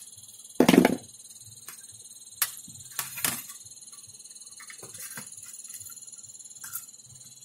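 Sheet-metal shield and circuit board of an LCD monitor being handled: a loud metallic clatter about half a second in, then several sharp clicks and knocks. A steady high-pitched trill runs underneath.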